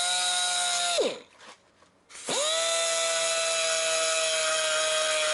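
Handheld electric power tool running in two bursts: its motor whines at a steady speed, winds down about a second in, then spins up again a little after two seconds and runs steadily.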